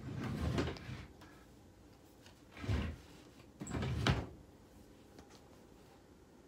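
A wooden dresser drawer slid shut by hand over about a second, followed by two short handling noises a little later.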